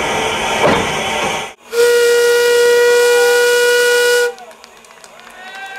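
A steam locomotive's whistle gives one long, steady blast of about two and a half seconds over a hiss of steam. Before it, other noise cuts off abruptly.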